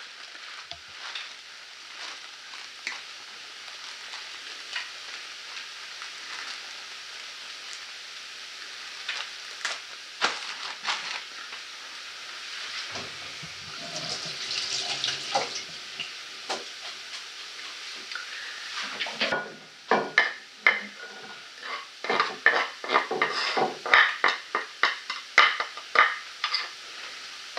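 Onions sizzling steadily in a frying pan, with a few scattered clicks. About twenty seconds in, a quick run of sharp knocks begins: a knife chopping on a cutting board.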